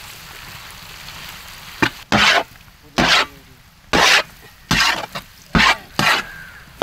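Chicken gizzards sizzling in a large kadai. After the first couple of seconds, a spatula scrapes across the pan about once a second as they are stirred, each stroke louder than the hiss.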